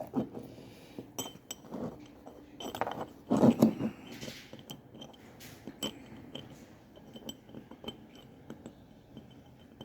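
Light clinks and small knocks of metal parts being handled and taken from their box, with a louder bump about three and a half seconds in.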